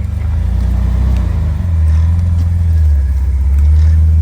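Jeep engine running at low revs close by, a deep steady engine note that swells slightly partway through, as the Jeep crawls an obstacle.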